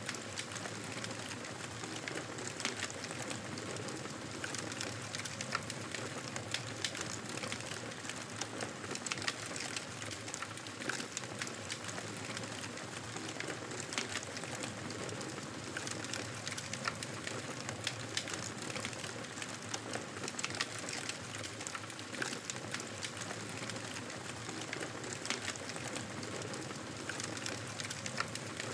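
Campfire burning steadily with a constant hiss and frequent sharp crackles and pops from the wood.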